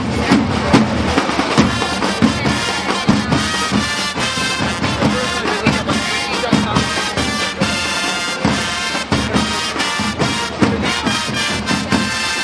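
Traditional flag-waving accompaniment: drums beating steadily under long-held horn notes that come in about two seconds in.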